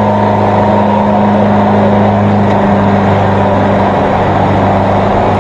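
A vehicle engine running at a steady, even pitch, a constant hum over a background of rushing noise.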